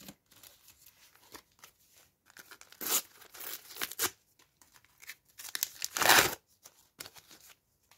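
A sticker pack's wrapper being torn open by hand, with crinkling between the tears. The loudest tears come about three seconds in and again about six seconds in.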